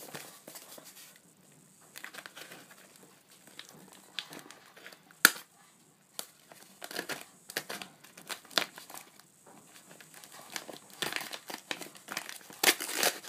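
Paper and plastic parcel wrapping being handled, crinkled and torn open, with irregular rustles and snaps as scissors cut into it. There is one sharp snap about five seconds in, and the crinkling gets busier near the end.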